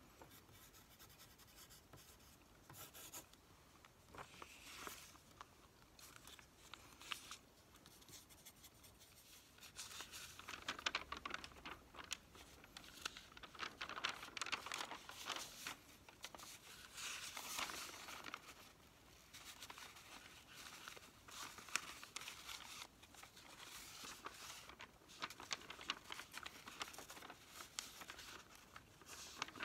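Newsprint grocery ad flyers rustling and crinkling close up as they are picked up, opened and their pages turned. Only a few soft rustles at first, then steady close crinkling from about ten seconds in.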